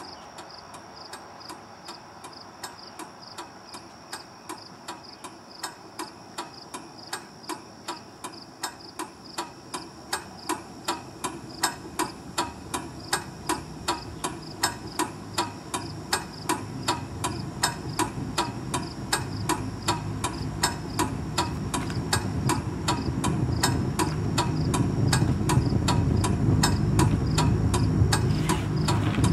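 Steady, evenly spaced clock-like ticking, a ticking sound cue in the show's soundtrack. A low rumble swells beneath it and grows steadily louder through the second half.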